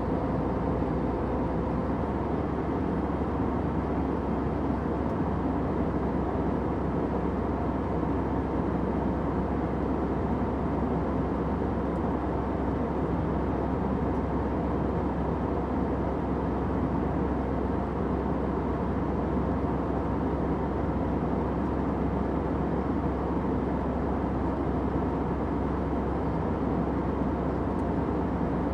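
Airplane cabin noise: a steady, even drone of engines and rushing air, deep and without breaks, with a faint steady hum in it.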